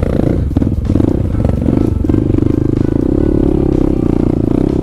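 Dirt bike engine running steadily, heard from the rider's seat.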